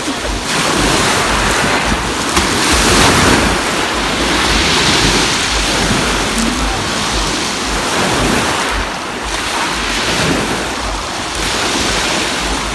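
Black Sea waves washing onto the beach, a continuous rush of surf that swells and falls back as the waves come in and recede.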